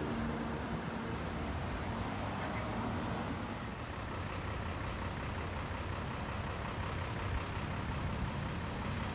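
Steady rumble and hiss of road traffic and wind around a railroad grade crossing. About three and a half seconds in, the crossing's warning bell starts a fast, high-pitched ringing that repeats evenly, with the gates down ahead of an approaching train.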